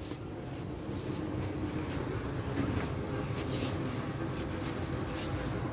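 Steady low rumble of background noise in a crowded indoor market.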